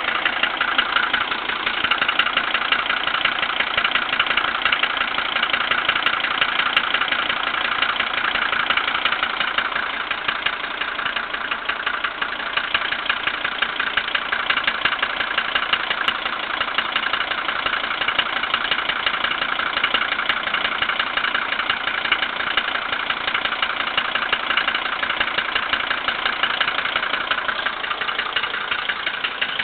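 Mercedes-Benz MB100 van's diesel engine idling steadily with a fast, even ticking clatter: the strange engine sound that the owner cannot account for.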